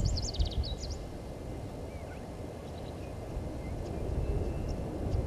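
Outdoor waterhole ambience: a steady low rumble of wind on the microphone, with a quick burst of small-bird chirping in the first second and a few faint bird calls later.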